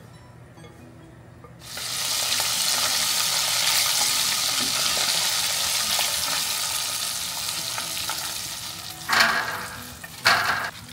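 Flour-coated chicken feet deep-frying in hot oil: a loud, even sizzle starts suddenly just under two seconds in and slowly fades, followed by two short loud bursts of noise near the end.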